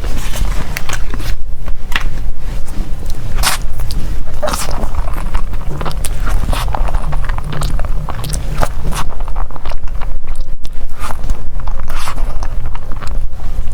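Close-miked eating of dessert: repeated bites and chewing, with many short clicks and crackles over a steady low rumble.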